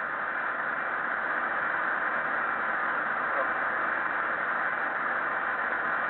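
Steady hiss of flight-deck background noise on a Tupolev Tu-154M cockpit voice recorder, with no voices or radio calls.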